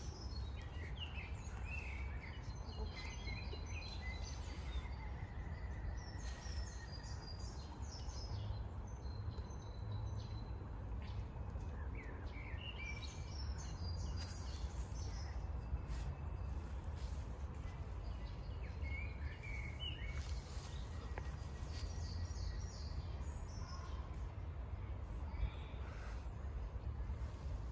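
Birds chirping and trilling off and on over a steady low background rumble.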